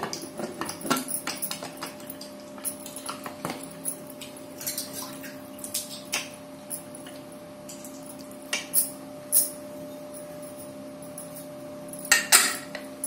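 Aluminium pressure cooker lid being fitted and pressed shut on the pot, with a string of sharp metallic clicks and knocks, a loud cluster of them near the end, over a steady background hum.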